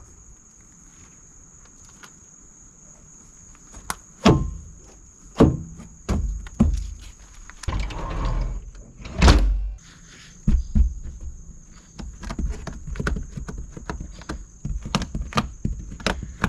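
Plexiglass pane being fitted into a mini excavator's cab window frame: a string of knocks and thunks starting about four seconds in, a scraping slide near the middle, then a heavy thump and more knocking.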